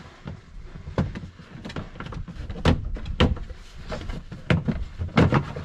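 Plastic cup-holder trim panel on a UTV dash being pried loose with a thin tool: a run of irregular clicks, snaps and knocks as its plastic corner clips let go, with the sharpest knocks about midway and near the end.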